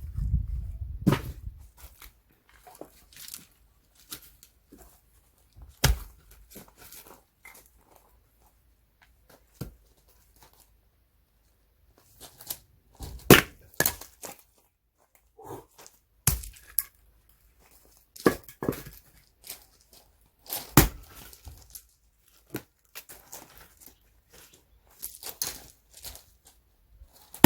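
An axe splitting firewood by hand: about ten sharp chopping blows a few seconds apart, some in quick pairs, with the wood cracking and tearing apart.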